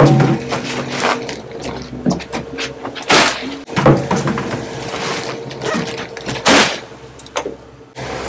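Crushed ice crunching and shifting, with several sharp knocks and thumps, as tuna are packed into ice in a boat's in-deck fish box. A steady engine hum runs underneath.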